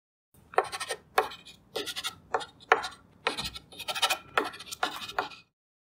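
Chalk writing on a blackboard: a run of about ten quick scratching strokes, starting about half a second in and stopping shortly before the end.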